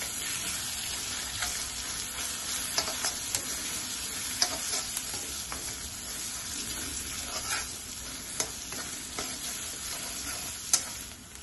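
Chopped onion, garlic and green chillies sizzling in hot oil in a steel kadhai, with a metal spatula scraping and tapping against the pan as they are stirred: a steady hiss broken by scattered sharp ticks.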